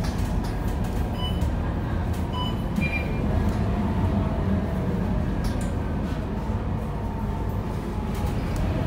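Scania K230UB city bus under way, heard from inside the passenger cabin: the steady rumble of its rear-mounted nine-litre five-cylinder diesel and road noise, with occasional light rattles and clicks.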